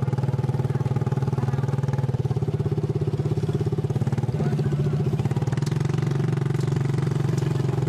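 Small motorcycle engine of a becak motor, a motorbike pulling a passenger carriage, running steadily at low speed with a slight rise in pitch about four and a half seconds in.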